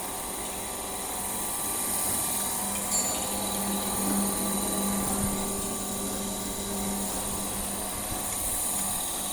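Floating fish-feed pellet extruder running, its electric motor giving a steady hum with a high hiss, and a single sharp click about three seconds in.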